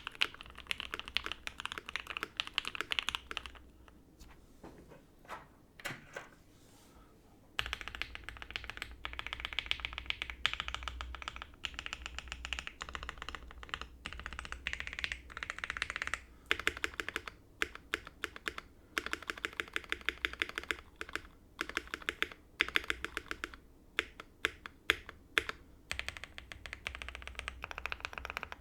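Typing on a mechanical keyboard with lubed Banana Split linear switches on a POM plate and GMK keycaps, in fast runs of keystrokes. The typing pauses about four seconds in, with only a few single keystrokes, and resumes steadily about seven and a half seconds in.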